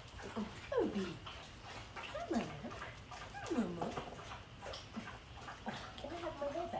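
Labrador whining: three long falling whines, about a second in, midway, and at about three and a half seconds, then softer wavering whimpers near the end.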